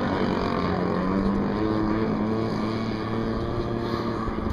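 Radio-controlled model airplane's small piston engine buzzing steadily in flight, its pitch shifting a little early on and then holding, with wind noise on the microphone.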